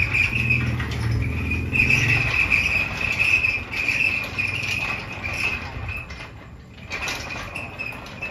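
An insect, likely a cricket, trilling in a steady high pitch that breaks into repeated pulses. A low hum runs under it for the first two seconds or so.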